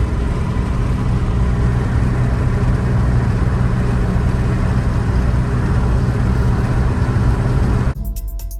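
Steady road and engine noise of a car driving, heard from inside the cabin, with a low hum under it. It cuts off suddenly near the end as music begins.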